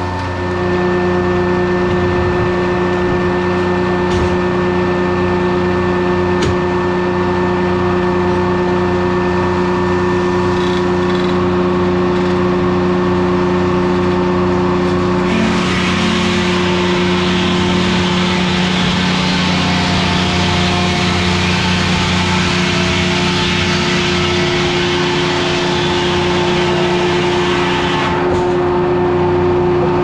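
Two-stroke 1953 Detroit Diesel engine running steadily, driving a Corley circular sawmill. About halfway through, the saw blade starts cutting through a log and adds a loud rushing noise that lasts about twelve seconds, then stops near the end while the engine runs on.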